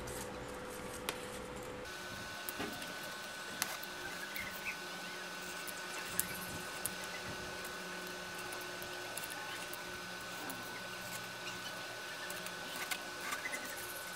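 Craft cutter knife scoring and cutting through thin cardboard: faint scratching of the blade with scattered small clicks, over steady background hiss.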